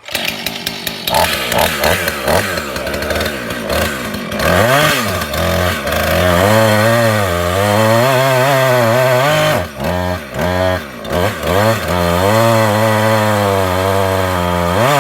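Husqvarna 450 Rancher two-stroke chainsaw running at high revs during a cut test, its engine pitch rising and sagging as it works, then cutting out abruptly at the end: the saw stalls unexpectedly.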